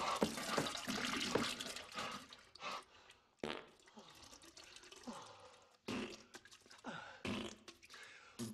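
Wet fart and splattering diarrhea sound effects: a dense run for the first three seconds or so, then separate bursts every second or two.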